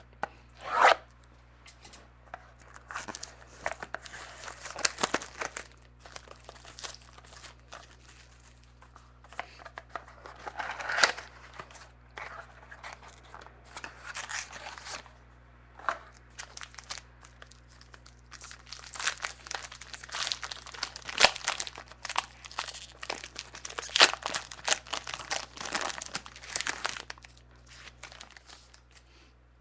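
Wrapping on a sealed mini box of trading cards being torn open and crinkled by hand, in irregular crackly bursts with a few louder rips.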